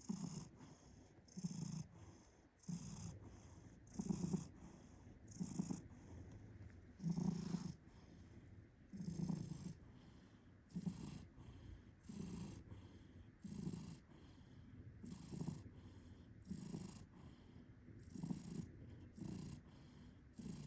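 Domestic cat snoring and purring in rhythm with its breathing: a low purring snore on one half of each breath, about one breath every second and a half, alternating with a soft airy hiss on the other half.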